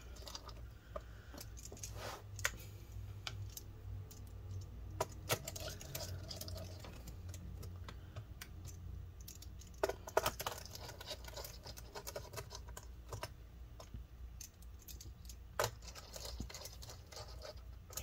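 Small screws being driven back into a laptop's plastic bottom case with a small screwdriver: scattered faint clicks and ticks of the screwdriver tip and screws, with a few sharper clicks, two close together about ten seconds in.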